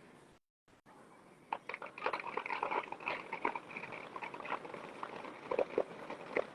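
Fireworks crackling: a dense run of small, irregular pops and sizzles that starts about a second and a half in, after a brief dropout in the sound.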